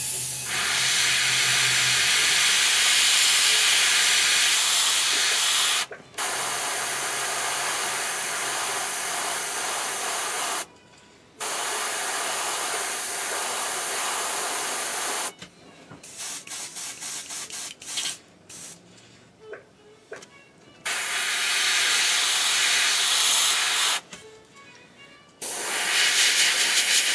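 GSI Creos airbrush spraying paint in long hissing bursts of a few seconds each, broken by short pauses, with a quick run of short pulses about two-thirds of the way through.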